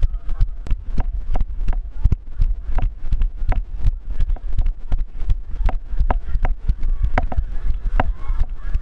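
Rapid, irregular thumps and clicks from a chest-mounted GoPro jolting with each stride of a jogging runner, with a low pounding underneath that the wearer puts down to his heartbeat.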